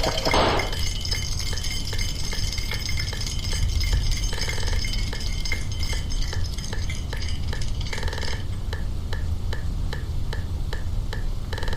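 Looped noise in a sound collage: a steady low rumble under regular clicking, about three clicks a second, with a short burst of fuller sound about every four seconds.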